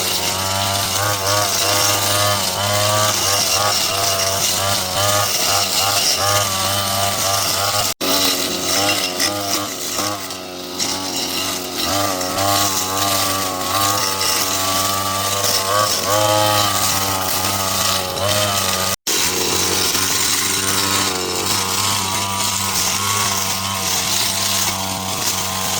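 Small petrol engine of a hand-held power cutting tool running continuously at high revs, its pitch wavering as it works through growth. The sound drops out for an instant twice.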